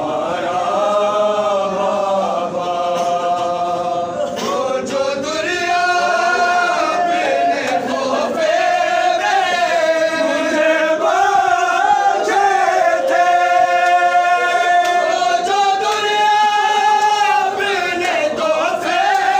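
Group of men chanting an Urdu noha, a mourning lament, together in long held, slowly gliding sung phrases.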